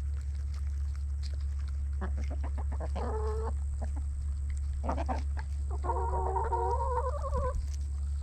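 Hens clucking while feeding, with two drawn-out calls, a short one about three seconds in and a longer, wavering one near six seconds, over a steady low hum.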